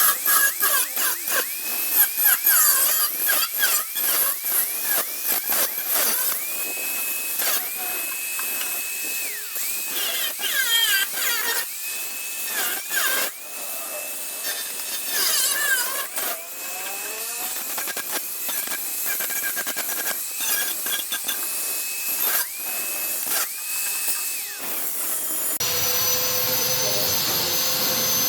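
Power tool working on a Vespa's steel body panels, running in short bursts with a high whine that comes and goes, mixed with metallic clicks and knocks. Near the end the sound changes abruptly to a steadier whine.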